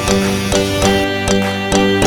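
Background music: plucked strings over a steady beat, with notes changing every fraction of a second.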